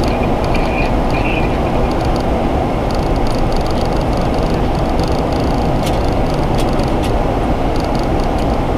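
Steady in-flight noise on a Boeing 737 flight deck during the descent: a loud, even rush of airflow over the nose and windshield with the engines' rumble beneath. A few faint ticks come between about six and seven seconds in.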